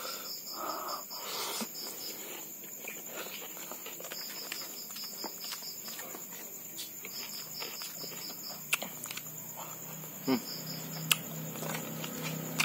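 Crickets chirping in short repeated trills over a steady high insect drone, with close-up sounds of someone eating rice by hand: chewing and a few sharp smacks or clicks in the second half.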